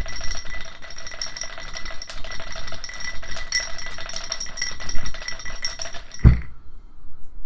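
Dice rattling inside a drinking glass as it is shaken, clicking rapidly against the glass, which rings with each hit. After about six seconds the rattling stops with a single thump, and then it goes much quieter.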